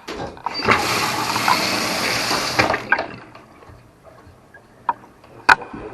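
Water spraying out of a valve on a well pressure tank's plumbing when the pump is switched on, a loud rush for about two seconds that then stops. A couple of sharp knocks near the end.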